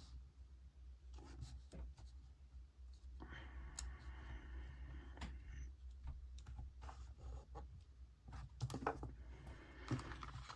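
Faint handling of paper and a sticker sheet: small scattered clicks and taps, with a longer rustle a few seconds in as stickers are peeled and moved about.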